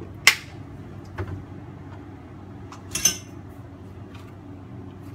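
Kitchen items handled on a countertop: a sharp knock as the soy sauce bottle is set down, a small tap about a second in, and a clatter about three seconds in as a plastic sugar container with a spoon in it is picked up, over a faint steady low hum.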